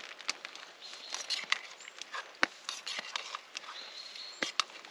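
Irregular light taps and clicks, a few a second, with two short high whistling tones, about a second in and again near the end.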